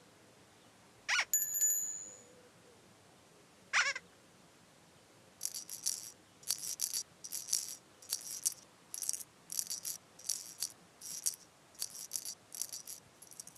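Children's TV sound effects: a quick rising swish ending in a bell-like ting, a second swish a few seconds later, then a steady run of short high rattling shakes, about two a second.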